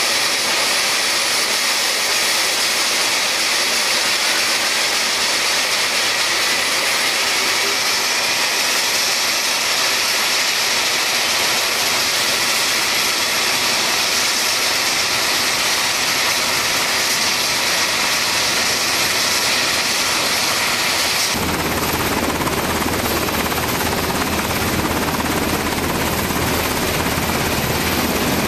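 UH-60 Black Hawk helicopter's twin turboshaft engines and main rotor running on a ship's helipad, a loud steady noise with a shrill hiss. About 21 seconds in the sound changes abruptly, the hiss dropping away and a deep rumble taking over.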